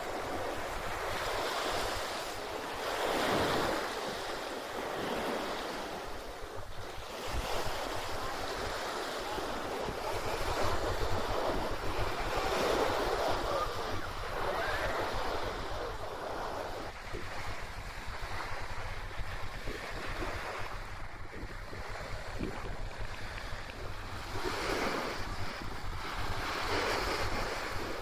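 Sea waves washing onto a beach, swelling and easing every few seconds, with wind rumbling on the microphone.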